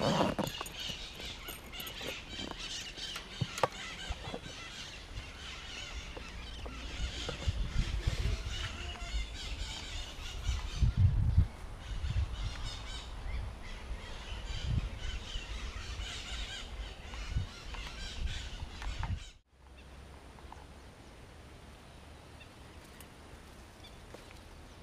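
Birds chirping outdoors over low thuds of footsteps and handling. About two-thirds of the way through the sound cuts to a quieter, steady outdoor background.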